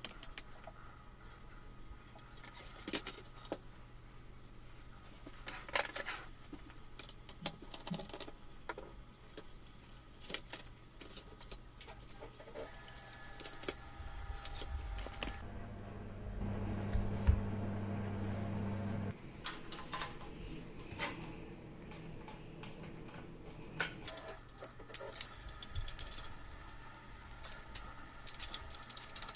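Handling of a monitor's perforated sheet-metal electronics chassis and its circuit boards: scattered clicks, taps and light metal rattles. A low hum grows louder for about three seconds midway.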